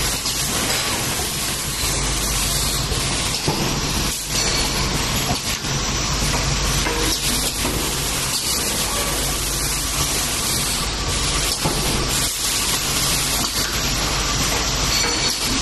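Corrugated paper baking-tray forming machine running, a steady dense noise with a low hum underneath.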